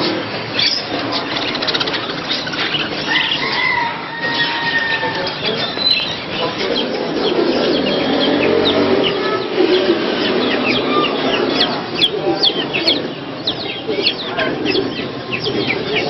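Many caged birds chirping and chattering at once, a dense, continuous mass of short high calls that grows busier about halfway through.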